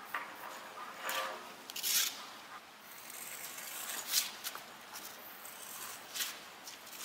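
Aerosol spray-paint can hissing as paint is sprayed onto a wall, in several short bursts and one longer spray of about a second.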